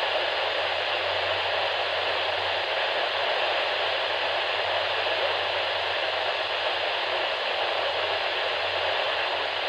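Steady hiss of static from a weather radio receiver while no voice is being broadcast, with a low hum underneath.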